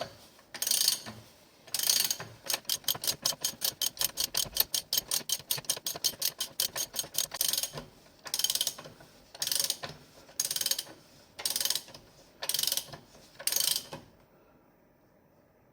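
Ratchet wrench turning the motorcycle's front axle in: a couple of ratcheting strokes, then a fast, even run of pawl clicks for about five seconds, then six slower strokes about a second apart that stop near the end, with the axle lightly snugged up.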